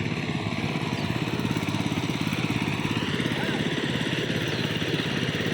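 A small engine running steadily at an even speed, with a fast low pulsing.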